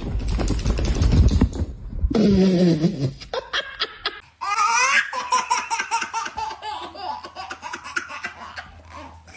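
Laughter, in a long run of quick repeated pulses from about halfway in, after a short stretch of low rumbling noise at the start.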